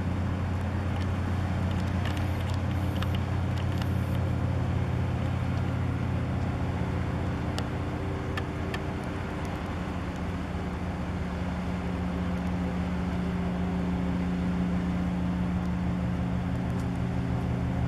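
A steady low engine drone, even in level, with a few faint high clicks in the first half.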